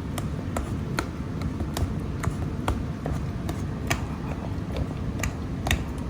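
A utensil mashing roasted eggplant in a bowl, with short sharp taps against the bowl in a steady rhythm of about two to three a second.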